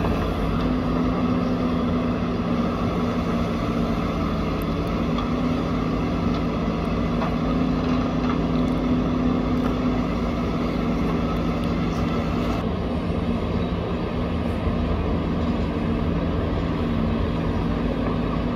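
Diesel engines of backhoe loaders running steadily as they dig and load dirt: a low, even drone with a steady hum. The higher hiss drops away about thirteen seconds in.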